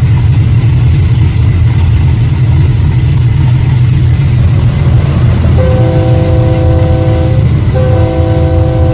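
Heavy low rumble of a train running, then about halfway through the train's multi-tone air horn sounds two long blasts with a brief break between them, warning someone on the track.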